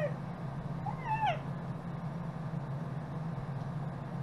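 A young child's short, high meow-like squeal about a second in, rising and then falling in pitch, over a steady low hum.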